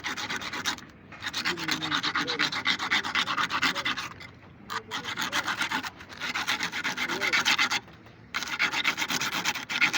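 Rapid back-and-forth abrasive rubbing, like hand sanding or filing, in four runs separated by short pauses.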